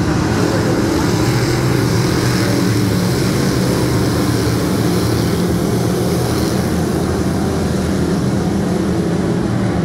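A field of dirt-track race cars running at speed around the oval: a loud, steady engine drone from the pack of cars.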